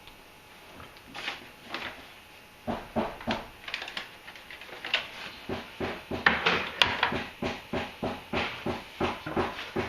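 Abrasive hand strokes on wood, a quick uneven run of about two or three short rasping strokes a second that starts a few seconds in.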